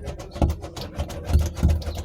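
Dull, low thuds mixed with scraping and rubbing on a car's trunk sheet-metal panel covered with bitumen vibration-damping sheet, the damped panel giving a deadened knock rather than a ring.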